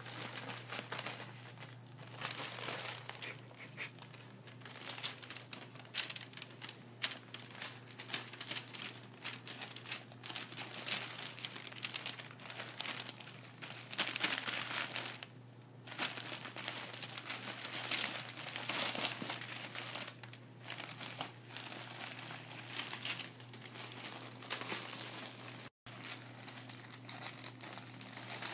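Crumpled sheet of packing paper crinkling and rustling in irregular spells as a cat paws, burrows and rolls on it.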